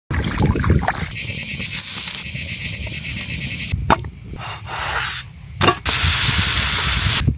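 Food sizzling and hissing as it cooks over an open fire, heard in several short clips that change abruptly, with a few sharp pops or knocks between them.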